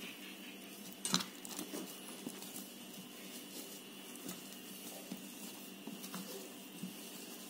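Boiled potatoes being mashed by hand in a stainless steel bowl: faint soft squishing with light scattered taps against the metal, and a sharper tap about a second in.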